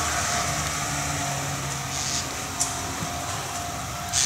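Steady vehicle noise with a faint hum, slowly fading, broken by two brief high-pitched sounds, one about two seconds in and one at the end.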